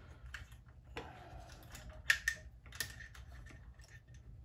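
Small metal parts clicking and tapping as the carburetor and its adjusting needles are fitted by hand onto an old Jonsered 80 chainsaw, with a sharper click about two seconds in.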